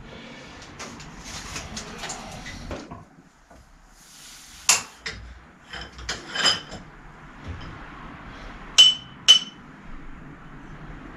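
Metal tools and parts being handled and set down on a workbench: soft handling noise, then a scatter of sharp metallic clinks, the loudest two about half a second apart near the end.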